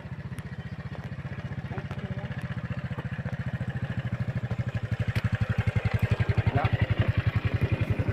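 A small engine running with a steady, rapid chugging beat, growing gradually louder.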